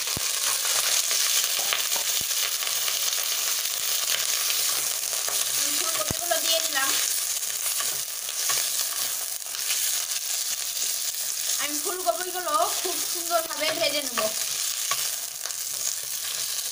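Cauliflower florets frying in hot oil in a kadai, a steady sizzle, with a wooden spatula stirring them around the pan.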